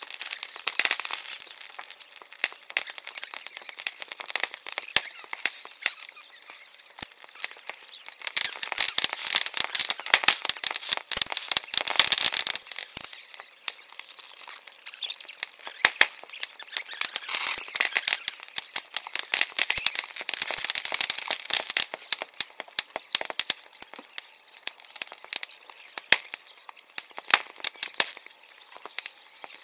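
A large bonfire on a boat crackling and popping densely, with louder spells of crackle coming and going.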